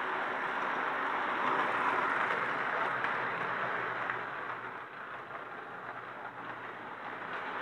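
1936 Marx 0-4-0 tin plate toy train running on three-rail O gauge track: the steady running noise of its motor and tin cars' wheels, louder as the cars pass close and easing off about five seconds in.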